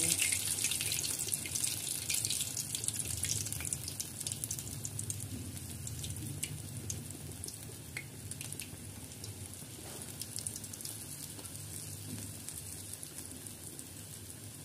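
Urad dal batter fritters (bhallas) deep-frying in hot oil: a steady sizzle with scattered crackles and pops that slowly dies down as the batter cooks.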